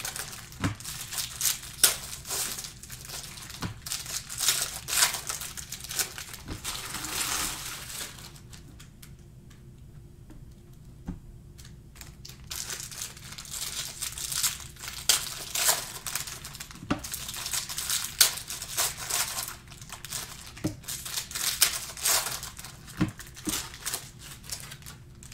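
Trading-card pack wrappers crinkling and being torn open by hand, with a quieter few seconds around the middle.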